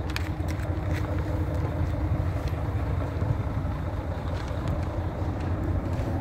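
A diesel engine idling, a steady low hum with a few faint knocks over it.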